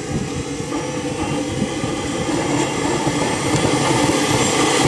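JetCat P-80 model jet turbine running on the ground and spooling up: a steady rushing roar that grows gradually louder, with a thin high whine rising in pitch near the end.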